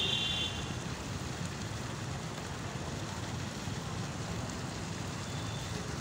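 Artificial rock fountain spraying water up and splashing down over stone: a steady rushing hiss. A brief high tone sounds at the very start.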